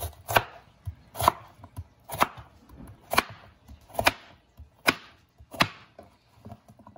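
Chef's knife chopping a raw russet potato into cubes on a plastic cutting board: seven sharp knocks of the blade hitting the board, about one a second, with lighter taps between.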